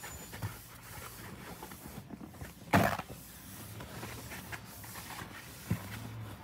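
Paper towel rubbing across a desktop, with rustling from the recording device brushing against clothing. A sharp knock comes just under three seconds in and a smaller one about six seconds in.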